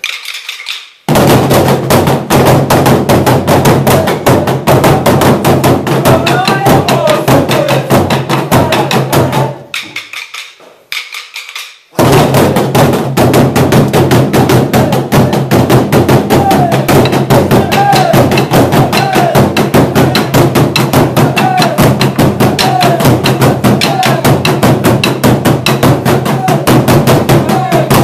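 Burundian drums, tall wooden drums with cowhide heads, beaten with sticks by an ensemble in a fast, dense, driving rhythm. The drumming starts about a second in, stops for about two seconds near the middle, then comes back in all together.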